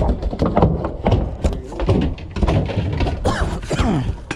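Repeated hard thunks of a halibut being clubbed with a fish bat on a fishing boat's deck, with voices mixed in.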